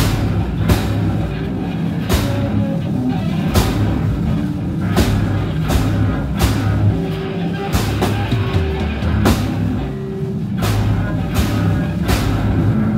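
Live rock band playing an instrumental passage: electric guitars and bass guitar over a Tama drum kit. Cymbal crashes land on a steady beat, about three every two seconds, over sustained low bass notes.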